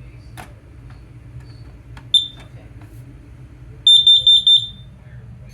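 Kidde smoke alarm being tested: a click, then a single short high-pitched beep about two seconds in, and a quick run of about five high beeps near the end as the alarm sounds.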